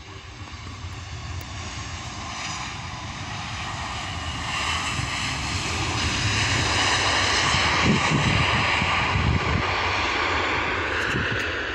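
Jet engine noise from an Airbus A320 on its landing roll, building steadily as the airliner rolls nearer along the runway, loudest about two-thirds of the way through, then easing a little near the end.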